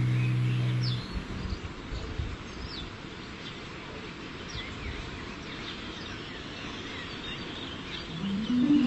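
Birds chirping over a steady outdoor hiss. A held low musical tone stops about a second in, and music with rising stepped notes comes in near the end.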